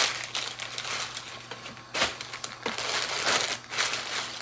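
Clear plastic packaging bags crinkling and rustling as clothes are handled and pulled from them, in repeated bursts with a sharper crackle about two seconds in.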